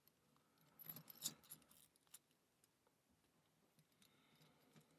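A few faint metallic clicks and scrapes as small lock parts and tools are handled, bunched about a second in, with scattered quieter ticks later; otherwise near silence.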